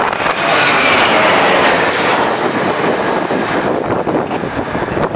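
Jet airliner passing low on its landing approach: loud engine noise with a faint whine that falls in pitch, the high part fading away about halfway through. Gusting wind buffets the microphone.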